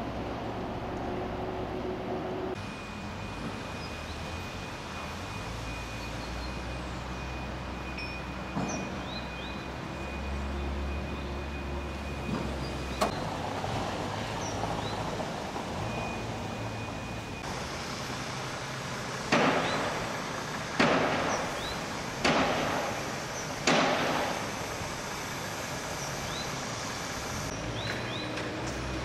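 Outdoor city ambience with a steady traffic hum and scattered high, short chirps. Past the middle come four sharp, loud sounds about a second and a half apart, each dying away.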